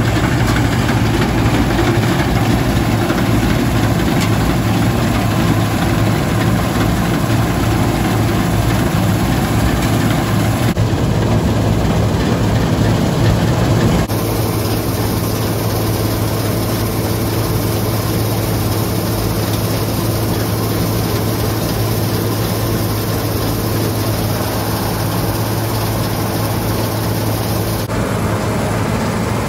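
Bizon Super Z056 combine harvester running steadily while harvesting: its diesel engine drones loud and even. The tone changes abruptly about halfway through and again near the end.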